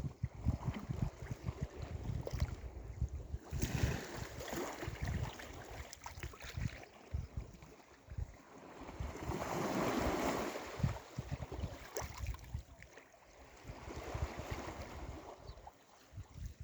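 Sea waves washing in on the shore, swelling and falling back about three times with the loudest wash near the middle. Wind buffets the microphone with low gusty rumbles, mostly in the first half.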